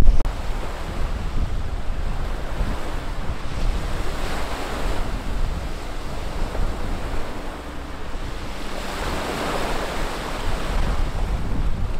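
Sea waves breaking and washing on a pebble shore, surging about four seconds in and again near nine seconds, with wind buffeting the microphone.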